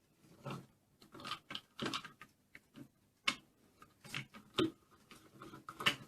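Faint, irregular clicks and taps of plastic toy parts being handled on a Play-Doh Tonka Diggin Rigs playset, a sharper click about three seconds in.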